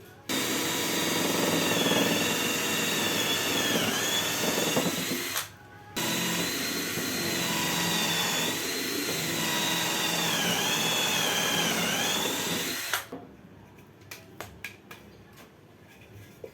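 Makita cordless drill running in two long bursts of about five and seven seconds, its motor whine dipping in pitch several times as it bites under load. A few light clicks follow.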